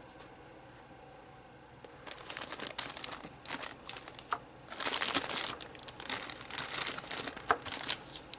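Packaging crinkling and rustling as it is handled. It starts about two seconds in, comes in uneven spurts and is loudest about halfway through.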